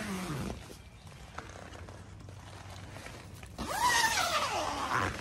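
Tent panel zipper being pulled along its track, a loud rasp about three and a half seconds in that slows and falls in pitch over about a second.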